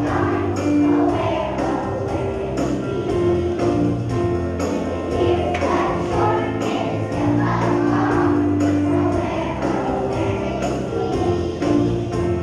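A choir of young children singing a song to instrumental accompaniment with a steady beat.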